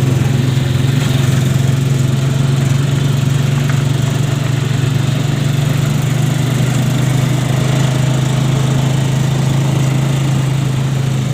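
An engine running steadily at an even speed, a constant low hum with no revving.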